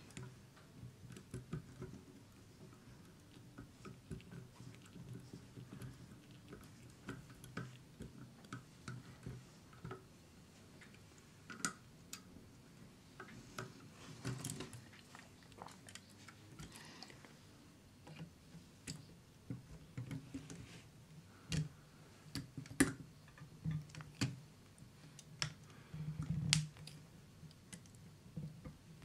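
Small screwdriver turning a tiny screw into a plastic model-truck frame part: faint, irregular clicks and creaks of plastic, with a few sharper clicks in the second half. The screw never gets tight, which the builder puts down to the pre-drilled hole in the plastic being too shallow for it.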